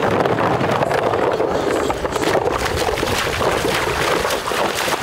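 Water sloshing and splashing as a hunter in rubber waders wades through a shallow pond, with decoys splashing down as they are tossed out.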